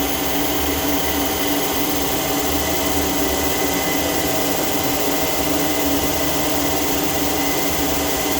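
Okamoto IGM 15NC CNC internal grinder running with its spindle turning: a steady mechanical hum and hiss with constant tones, holding the same speed throughout.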